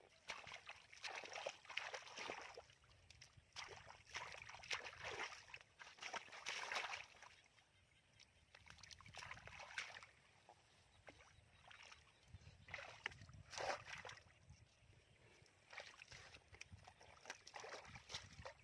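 Shallow muddy water sloshing and splashing in irregular bursts as hands grope through the mud for fish.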